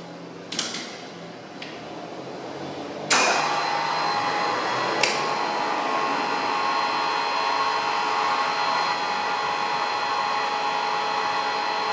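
MAS VO 32 radial drilling machine being started: a click from its controls, then about three seconds in the spindle drive comes on with a sudden clunk and runs steadily with a whine of several held tones.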